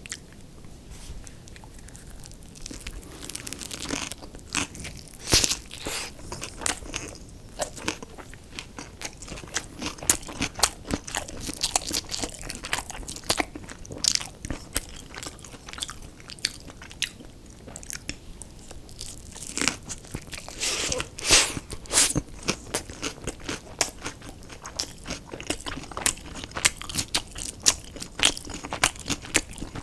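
Close-up eating sounds: a person biting and chewing crunchy fried fast food, with dense crackling crunches. After a quieter start, the crunching runs thick, eases for a few seconds past the middle, then comes back loudest.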